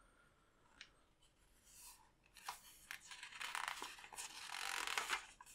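Glossy magazine page being handled and turned: a few faint paper clicks, then about two seconds of paper rustling in the second half.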